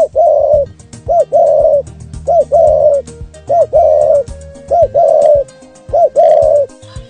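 A bird calling a two-part call six times, about once every second and a bit: a short rising-and-falling note, then a longer held note.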